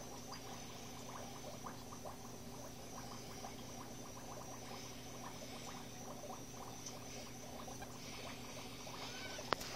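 Aquarium pump running with a steady low hum, water trickling and bubbling in many small irregular ticks. A single sharp click near the end.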